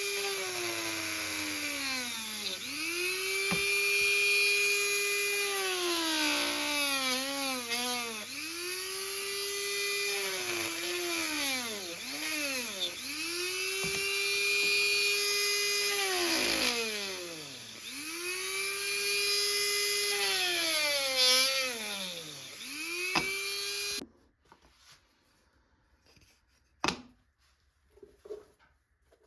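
Small high-speed electric power tool's motor whining at full speed on wood, its pitch repeatedly sagging and climbing back about every four seconds. It cuts off suddenly near the end, leaving a few light clicks and taps.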